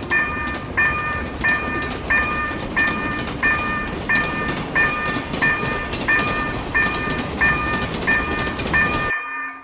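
Japanese level-crossing warning bell clanging steadily, about one and a half strokes a second, over the rumble and clatter of a passing train. The train noise cuts off suddenly about nine seconds in, while the bell keeps ringing.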